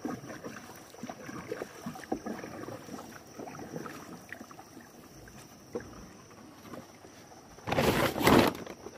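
Wooden canoe being paddled: small irregular paddle splashes, water lapping and light knocks on the hull. About eight seconds in comes a short loud burst of noise, the loudest sound here.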